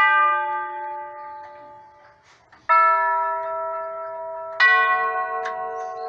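Brass chime tubes of a Herschede Model 228 grandfather clock struck one at a time by its hammers. Three single notes sound about two seconds apart, each a different pitch, and each rings on and slowly fades.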